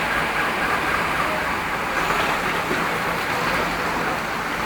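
Steady rushing of a flooded river running over its banks, an even noise that holds its level throughout.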